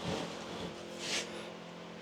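Bandsaw sawmill's engine idling with a steady hum. A low knock comes at the start and a short hissing scrape about a second in.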